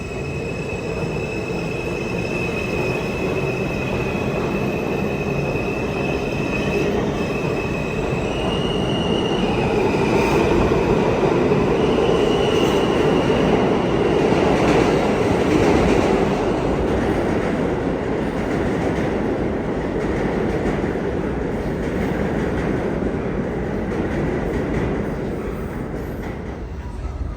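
New York City subway train running through the station on steel rails, its wheels squealing with steady high tones. The rumble swells to its loudest about halfway through, then fades toward the end.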